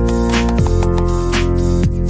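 Background music with held chords, a beat, and low bass notes that slide down in pitch.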